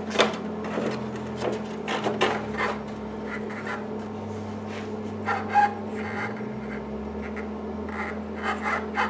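Fiberglass race bodywork being handled and fitted onto a motorcycle: scattered knocks and scraping rubs, over a steady low hum.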